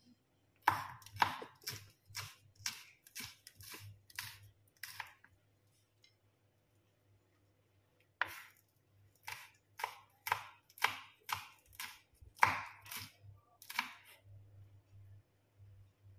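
Chef's knife chopping bird's eye chillies on a wooden cutting board: quick knife strikes on the board, about two to three a second, in two runs with a pause of a couple of seconds between them.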